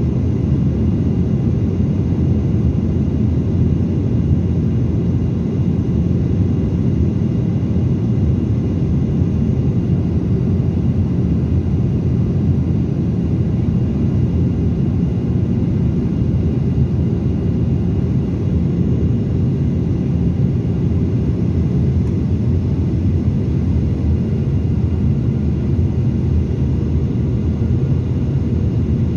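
Steady in-flight cabin drone of a Boeing 737-800, heard inside the cabin over the wing: its CFM56 turbofan engines and the airflow make a deep, even noise that does not change.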